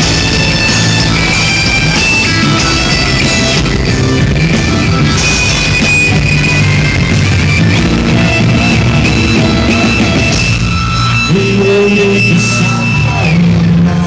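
Rock band playing live through a concert PA in an instrumental stretch without vocals: electric guitar, bass and drums, with long held high guitar notes over the band.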